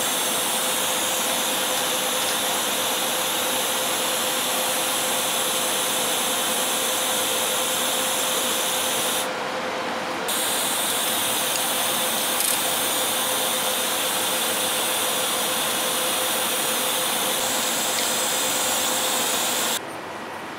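TIG welding arc on stainless steel tubing, a steady hiss with a faint steady tone. It stops briefly about nine seconds in and restarts, then cuts off shortly before the end.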